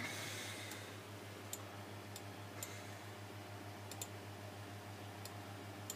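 A handful of separate, irregularly spaced clicks of a computer mouse, faint, over a steady low hum.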